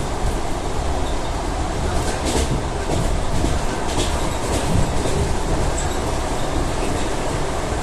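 ED4M electric multiple unit rolling along the track with a steady rumble, its wheels clacking over rail joints a few times.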